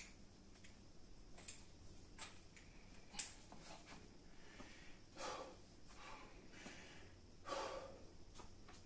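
A few sharp clicks as a weightlifting belt is fastened, the loudest about three seconds in. Then two forceful breaths through the nose, a couple of seconds apart, as the lifter psyches up for a heavy deadlift.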